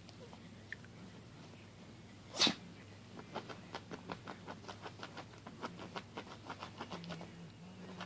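A newborn Maltese puppy sneezes once, a short sharp burst about two seconds in. Then comes a run of soft quick clicks, about five a second.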